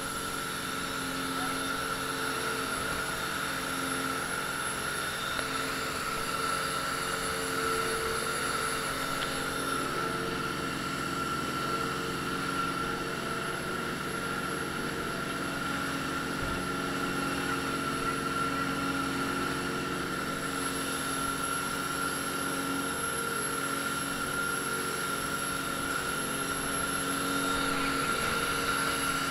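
Semi-rigid dive boat's engine running at speed, a constant whine over the rush of spray and wind along the hull.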